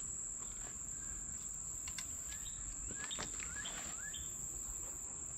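Insects droning in one steady high-pitched note, with a few short rising bird chirps in the middle and a couple of faint clicks.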